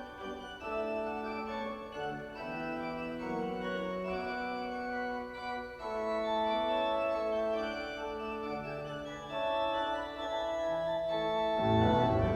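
Pipe organ playing a slow passage of held chords over a moving lower line. Just before the end the music turns suddenly fuller and louder.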